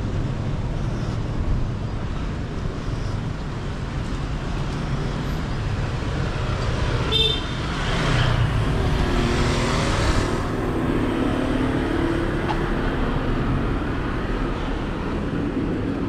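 Street traffic over a steady low rumble, with a vehicle passing close about eight seconds in, its engine and tyre noise swelling and fading over a couple of seconds. A short sharp beep comes just before it.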